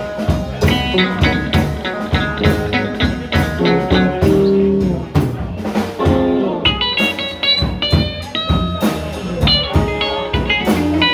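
Blues band playing an instrumental passage of a slow blues: guitar over bass and drums. From about halfway, high guitar notes with string bends take the lead.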